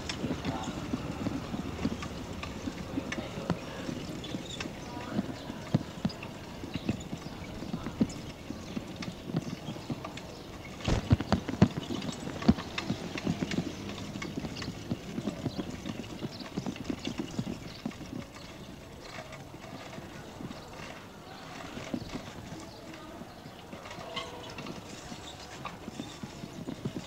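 Bicycle rattling and clicking as it is ridden over paved ground, with a cluster of louder knocks about eleven seconds in.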